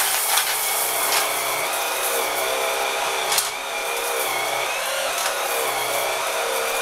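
JML 360° Swivel Sweeper's battery-powered four-brush head running with a steady whine that wavers slightly in pitch as it is pushed over a doormat. A few sharp clicks and rattles come as it picks up rice and small nuts and bolts.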